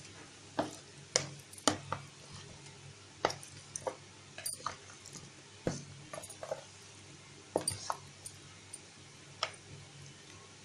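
A metal spoon knocking and scraping against a bowl as chicken drumsticks are turned over in a wet marinade: about a dozen short, irregular clinks.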